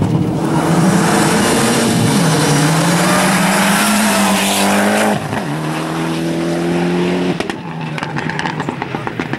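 Rally car at full throttle, its engine note climbing and dropping sharply at each upshift, about two seconds in and again about five seconds in, over a loud rush of tyre noise. It fades after about seven seconds as the car goes by.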